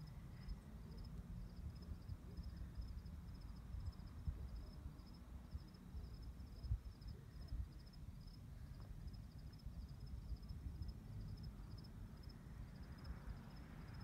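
A cricket chirping steadily: an even, unbroken run of short, high chirps. Underneath is a low rumble.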